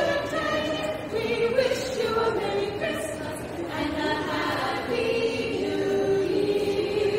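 Vocal group singing in harmony, several voices holding and moving between sustained notes.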